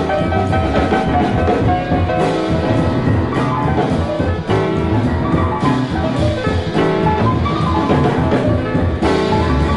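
Jazz piano trio on a vinyl record: piano with double bass and a drum kit whose cymbals and drums strike busily throughout.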